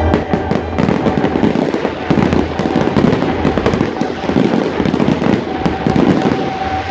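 Fireworks barrage: many shells launching and bursting in quick succession, with dense crackling and many sharp pops every second. A steady musical tone comes back in underneath near the end.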